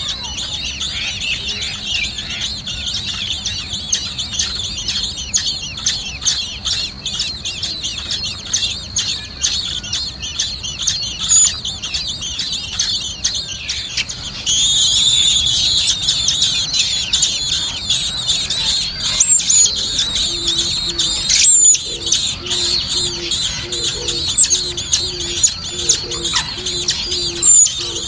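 Common blackbird nestlings begging with rapid, high-pitched cheeping calls, louder and fuller from about halfway.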